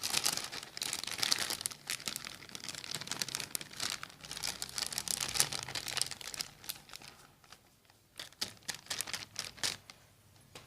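Plastic bag crinkling and rustling as gram flour is emptied from it into a bowl. The rustling is busy for about seven seconds, then thins to a few separate crackles.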